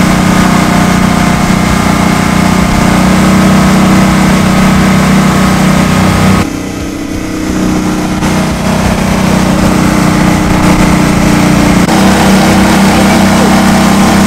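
Mud Buddy 35HD surface-drive mud motor running hard, pushing a jon boat along at speed. The steady engine note drops for a second or so about halfway through, then comes back up.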